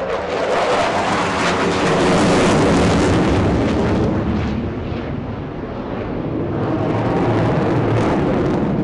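Jet engine noise from an HAL Tejas fighter's GE F404 turbofan as the jet manoeuvres through an aerobatic display. The noise is loud throughout. It swells, eases off around the middle, and swells again near the end.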